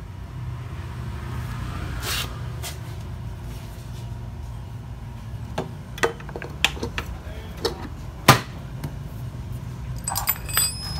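Knocks and clinks of a Honda scooter's CVT cover being fitted back onto the crankcase, a few short knocks from about halfway in, the loudest about eight seconds in, then light metallic clinks near the end. A steady low hum runs underneath.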